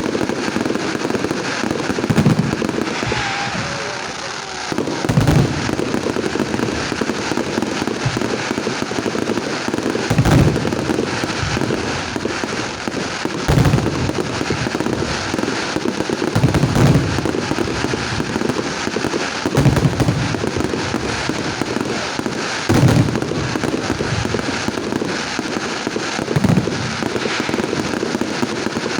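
Aerial fireworks display: a dense, continuous crackle of bursting stars, with heavy booms of shells exploding about every three seconds, eight or so in all.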